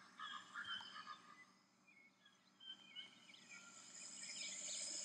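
Faint jungle-animal sound effects: short scattered chirps and croak-like calls, with a high hiss building in the second half.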